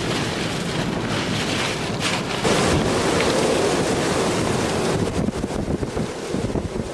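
Hurricane-force wind with driving rain, buffeting the microphone in uneven gusts, with a stronger gust about two and a half seconds in.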